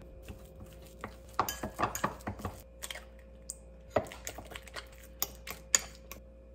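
Metal fork clinking and scraping against a ceramic bowl while mashing banana and stirring in an egg. The clinks come scattered, with a busy run about a second and a half in and a sharp clink about four seconds in.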